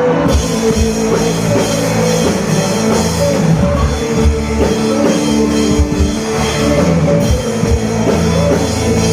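Loud rock-style band music with a drum kit and guitar, playing at a steady beat.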